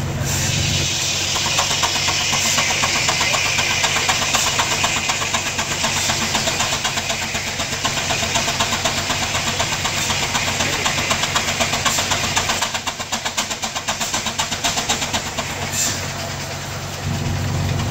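1909 Advance 22 hp steam traction engine running belted to a sawmill, its exhaust chuffing in a fast, even beat with hissing steam. The beat thins and drops briefly about thirteen seconds in, then picks up again.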